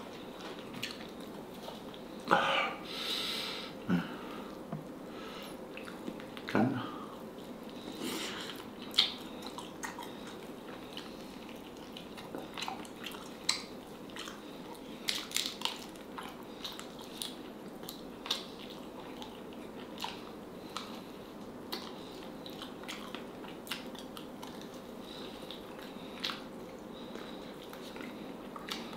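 Eating sounds: chewing and biting on pieces of boiled black H'Mong chicken. Short, sharp clicks are scattered throughout, and a few louder ones come in the first several seconds.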